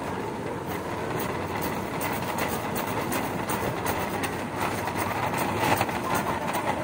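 Metal shopping cart rolling across a concrete store floor, its wheels and wire frame rattling steadily.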